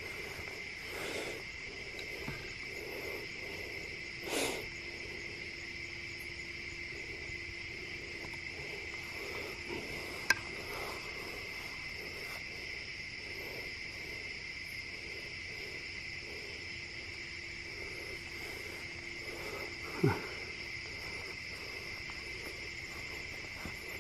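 Steady chorus of night insects, crickets, holding two high, unbroken pitches. A sharp click comes about ten seconds in, and a brief sound sweeping down in pitch about twenty seconds in. These two are the loudest moments.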